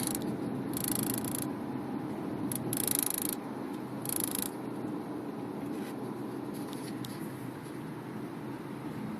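Steady road and engine rumble inside a moving Subaru Forester, broken by three short, sharp rattling bursts from the sunroof about one, three and four seconds in, with fainter ticks later. The owner suspects the retracted wind deflector is rattling as the body vibrates.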